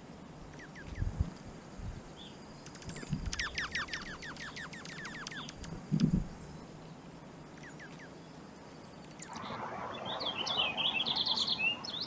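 Small songbirds at a winter feeder calling: a quick run of short descending chirps, then a busier burst of chattering calls near the end. A few dull low thumps come in between, the loudest about halfway through.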